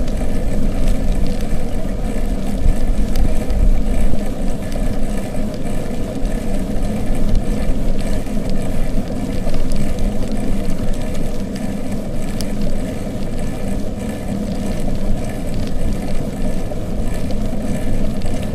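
Steady rumble of a bicycle ride heard from the moving bike: wind buffeting the microphone and tyres rolling on the road, with small scattered rattles.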